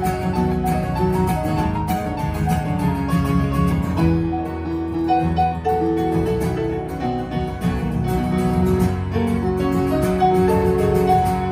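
Live acoustic band playing an instrumental passage without vocals: bowed fiddle, strummed acoustic guitar and keyboard with a piano sound, the held melody notes moving over a steady chordal backing.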